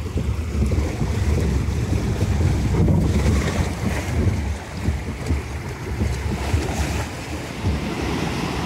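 Wind buffeting the microphone as a boat on a water ride moves along, with rushing water; a loud, uneven low rumble that starts suddenly.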